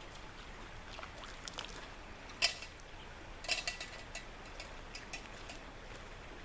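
Small camp cooking gear being handled and packed: scattered light clicks and clinks, with a sharp clack about two and a half seconds in and a short clattering cluster with a brief metallic ring about a second later.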